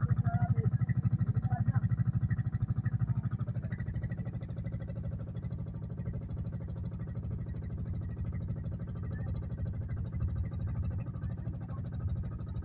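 Engine of a motorized bangka (outrigger passenger boat) running at a steady, fast chug. It is loudest for the first few seconds, then drops to a lower, even level about four seconds in.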